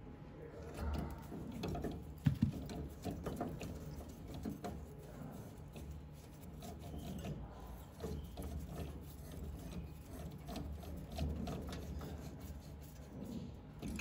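Irregular small clicks, taps and rattles of hands handling computer hardware, with two sharper knocks about two seconds in.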